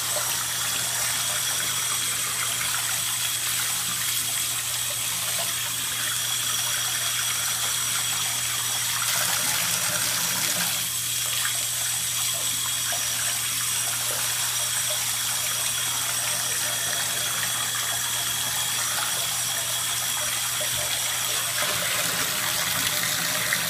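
Warm tap water running steadily into a bathtub, splashing over and through the pleats of a dry synthetic cone air filter held in the stream to rinse the dirt out. A steady low hum sits underneath.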